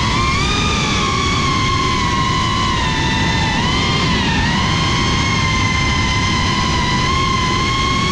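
FPV quadcopter's motors and propellers whining as heard from the onboard camera, the pitch sagging and rising with the throttle, with a dip about three and a half seconds in, over a steady low rumble of wind and vibration.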